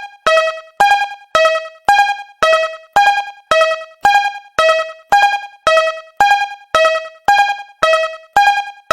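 Japanese railroad crossing warning bell ringing, with struck dings alternating between a higher and a lower tone, just under two a second.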